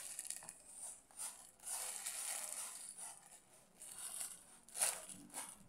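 Thin plastic bread bag crinkling and rustling as slices of bread are handled and taken out of it, in irregular bursts of rustle with a louder one near the end.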